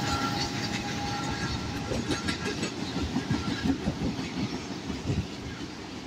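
Autorack freight cars rolling past, their wheels knocking and clacking over the rail joints with a steady rumble. The locomotive's horn trails off in the first second or two.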